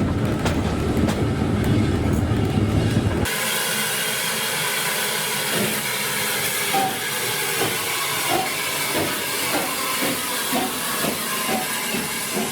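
Heritage-railway train sounds: a low running rumble for about three seconds, then an abrupt change to a steam locomotive's steady hiss with a run of soft, repeated knocks.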